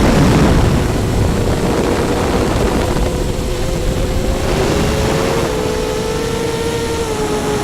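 Electric motors and propellers of an FPV model aircraft giving a steady whine that sinks slightly in pitch in the second half. A rough rumble of wind runs underneath it.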